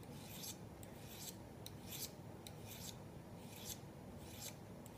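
Hand file scraping back and forth along the edge of a two-blade broadhead in faint, quick strokes, about two a second, sharpening the blade and working the wire-edge burr off.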